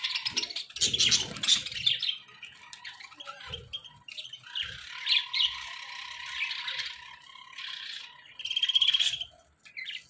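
A flock of budgerigars chattering, chirping and squawking all at once, a dense, overlapping warble. It is loudest about a second in, and there is a sharp, loud trill near the end.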